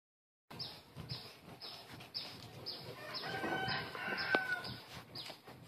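A rooster crowing about three seconds in, over a light sound that repeats evenly about twice a second.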